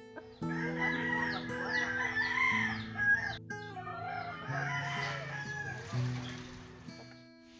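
A rooster crowing and chickens clucking, twice in long calls, over background music.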